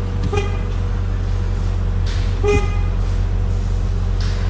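Car engine idling, heard from inside the cabin, with two short horn-like toots about two seconds apart.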